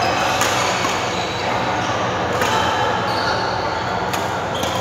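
Badminton rally: sharp racket strikes on the shuttlecock every second or two, with a few short sneaker squeaks on the court floor, over the steady background hubbub of a busy badminton hall.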